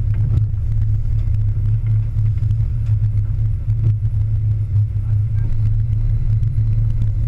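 Sportfishing boat's inboard engines running steadily, a loud low-pitched hum.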